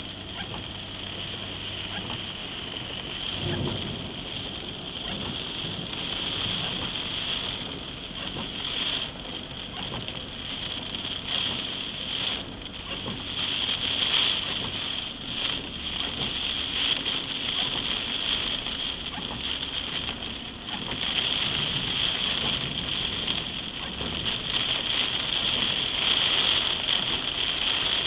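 Heavy rain pelting a car's roof and windshield, heard from inside the car as a dense, steady hiss. The downpour surges and eases, growing louder in the last third.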